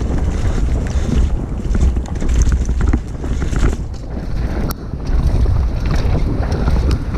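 Wind buffeting the microphone of a camera riding on a moving mountain bike, with a heavy low rumble and scattered rattles and clicks from the bike running over rough ground.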